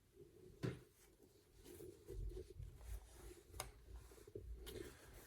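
Faint handling noise: light rustling with two soft clicks, as the headphone box and its contents are handled.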